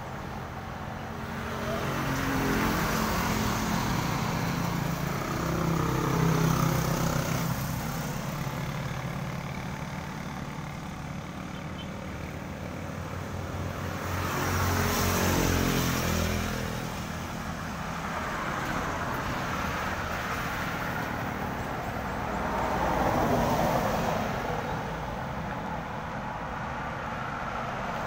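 Road traffic passing on a concrete road: vehicles go by one after another, each sound rising and then fading away, the loudest pass coming about halfway through, over a steady low traffic rumble.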